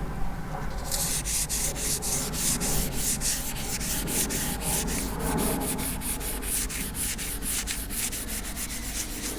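Hand wet-sanding of primer on a car bonnet with P600 wet-and-dry paper on a sanding block, kept wet with soapy water: a steady, rhythmic rubbing of the paper stroking over the panel.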